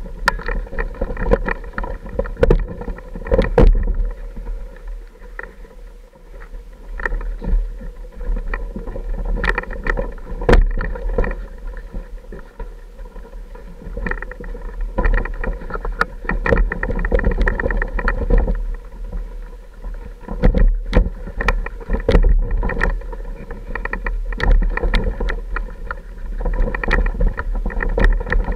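Off-road motorcycle engine running steadily at low speed on a rough, rocky trail, with frequent irregular knocks and rattles from the bike going over rocks.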